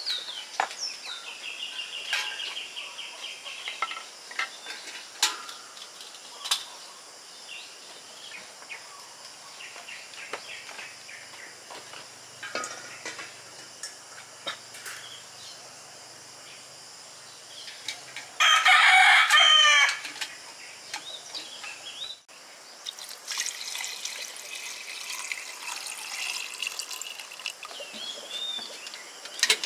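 A rooster crows once, loudly, about two-thirds of the way through, over small birds chirping and scattered light clicks and knocks.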